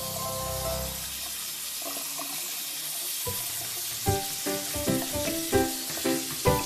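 Tap water running steadily into a sink over a puppy, heard as an even hiss under background music. A plucked tune with a low beat about twice a second comes in about three seconds in.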